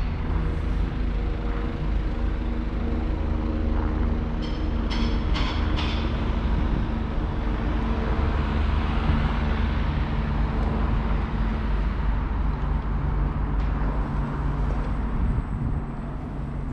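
Diesel passenger train running: a steady low rumble with an even engine hum, and a quick run of about four clicks about five seconds in.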